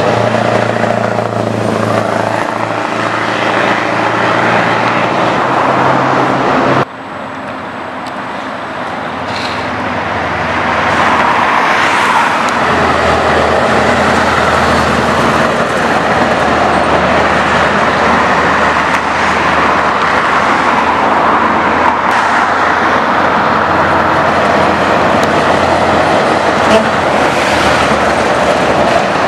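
Scania 164 580's V8 diesel running through a Zotos straight-pipe exhaust as the truck drives past, a steady, even-pitched engine drone. About seven seconds in the sound cuts abruptly to a quieter take, then builds for a few seconds and stays loud and steady as the truck passes close by.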